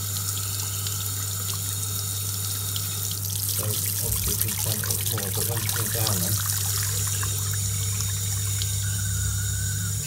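Mixer tap running a thin, steady stream of water into a ceramic washbasin, over a steady low hum.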